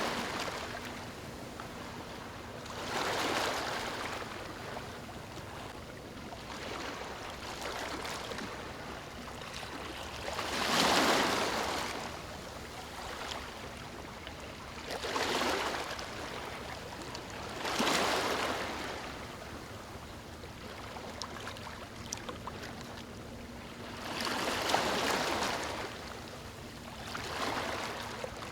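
Small waves lapping on a beach: six gentle washes of hiss in turn, each swelling and falling back over a second or two, with a quieter wash between them.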